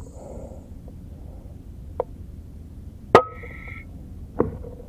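A PCP air rifle firing a single shot: one sharp crack followed by a brief ringing tone. Lighter clicks come about a second before and a second after the shot.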